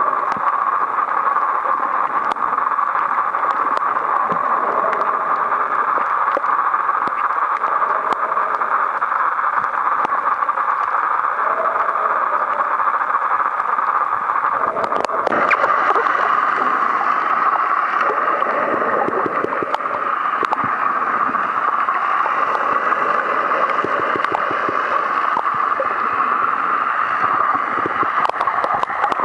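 Underwater rushing and gurgling of seawater, picked up by a waterproof compact camera held below the surface, with scattered small clicks and crackles. The sound brightens about halfway through.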